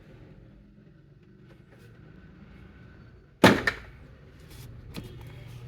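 Refrigerator door shut with one sudden loud bang about three and a half seconds in, ringing off briefly, then a smaller knock a moment later.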